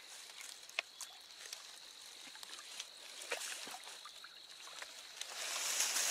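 Creek water splashing and sloshing, with rustling of wet leaves, as a dead deer is handled and pulled through a shallow creek: scattered small splashes at first, then a louder, more continuous sloshing and rustling near the end.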